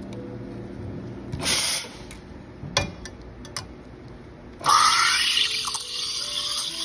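Espresso machine steam wand: a short hiss of steam, a few light metal knocks, then the wand starts steaming milk in a stainless steel pitcher with a sudden loud hiss about two-thirds of the way in that carries on.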